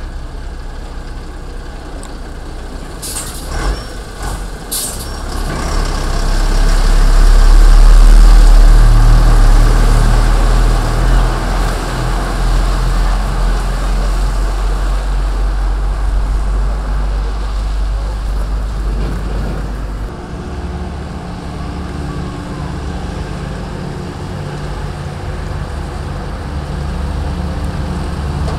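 Volvo heavy truck with a loaded low-loader trailer passing close, its diesel engine rumble swelling to its loudest about eight seconds in and then fading, after two short air-brake hisses near the start. From about twenty seconds in, another truck's diesel engine runs with a steadier hum as it approaches.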